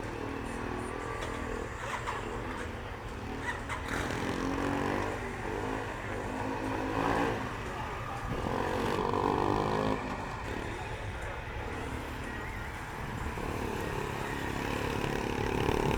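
Motorcycle engine revving up and dropping back again and again as it is throttled through tight slow turns, the pitch rising and falling.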